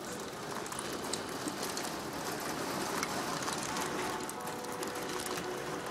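Heavy rain pouring down: a steady, dense hiss with many sharp drop hits.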